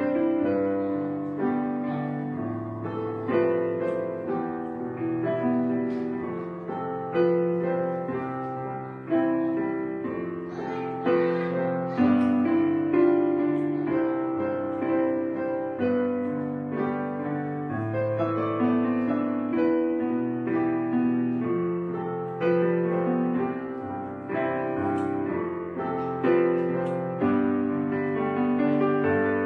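Background instrumental music: slow, held notes layered into chords.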